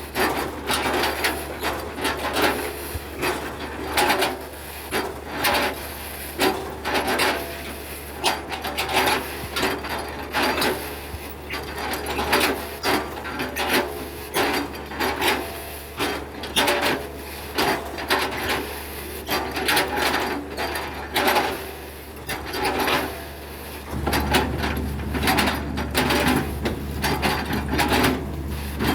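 Hitachi excavator's diesel engine running steadily while its bucket repeatedly chops and scrapes felled oil palm trunks, a dense run of crunching, rasping wood strokes. The engine grows louder near the end.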